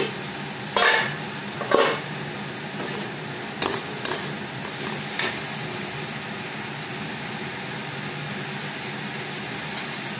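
A steel spatula stirs fried potato pieces through tomato masala frying in oil in a steel kadai, over a steady sizzle. In the first five seconds the spatula scrapes and knocks against the pan several times, loudest at about one and two seconds in; after that only the sizzle goes on.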